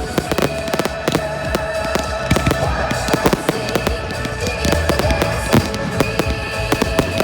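Fireworks display going off: many sharp bangs and crackles, several a second without a break, with music playing alongside.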